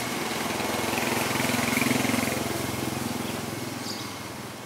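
A passing motor vehicle's engine: a steady engine note that grows louder over the first two seconds, then fades away as it moves off.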